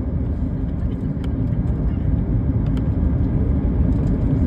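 Low, steady rumble of a Boeing 737 MAX 8's jet engines on approach, slowly growing louder.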